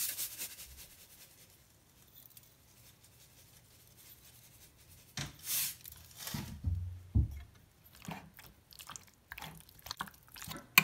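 Raw chicken pieces being mixed by hand with a yogurt and spice marinade in a glass baking dish: wet squishing and small crackles from about eight seconds in, after a few brief scrapes and soft knocks in the first half.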